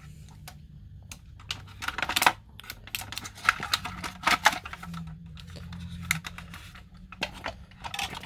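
Irregular clicks, taps and rattles of a hard-plastic 1:32 RC toy tank being turned over and handled as its battery pack is pressed into the hull, coming in quick bunches with the sharpest knocks about two seconds and four seconds in.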